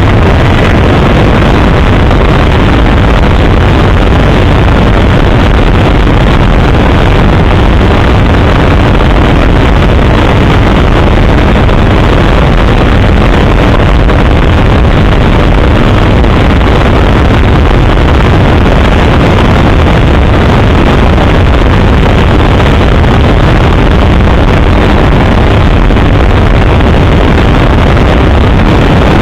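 Helicopter engine and rotor noise: a loud, steady, unbroken drone.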